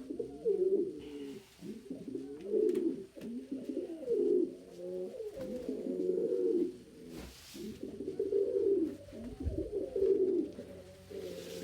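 Domestic pigeons cooing, with overlapping coo phrases following one another without a break: the courtship cooing of cocks strutting to impress hens. A brief rustle comes about seven seconds in.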